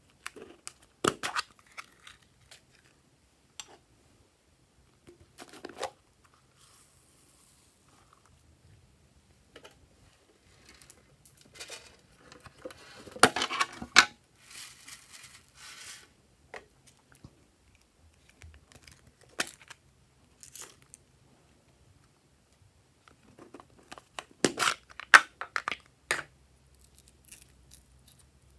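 Hands handling a plastic container, with scattered clicks and taps. About twelve seconds in, a few seconds of noisy pouring as foam beads spill out of it into a tray of slime. Near the end there is a loud cluster of clicks and knocks.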